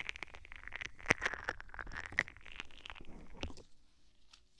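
Fast, close-miked ASMR triggers: a dense run of quick clicks, knocks and scratches, stopping about three and a half seconds in.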